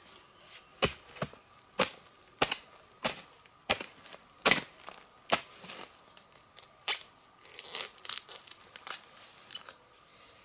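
A blade chopping in a series of sharp strikes, about one every half second to second, with quicker, softer strikes in the second half.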